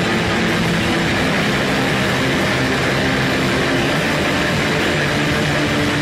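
Hardcore punk recording ending on a dense, steady wall of distorted electric guitar with held notes.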